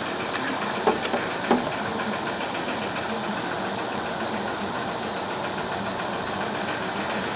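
Steady machine-like background noise running throughout, with two short light clicks about a second and a second and a half in.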